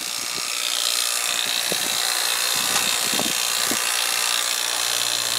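Refrigeration vacuum pump running steadily, pulling a vacuum on a new air conditioner's refrigerant lines and indoor coil before the refrigerant is released into them.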